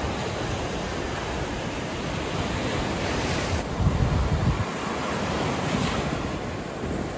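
Surf breaking and washing up the beach in a steady rush. Wind buffets the microphone in a short, stronger gust about four seconds in.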